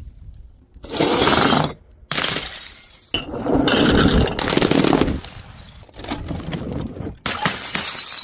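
Glass bottles shattering: a run of about five loud crashes and smashes one after another, several cut off abruptly.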